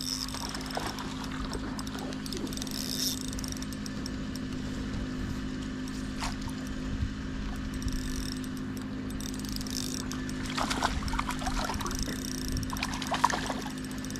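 Steady low mechanical hum, a motor- or pump-like drone, with a few faint high chirps over it, a single click about six seconds in, and a couple of brief faint sounds near the end.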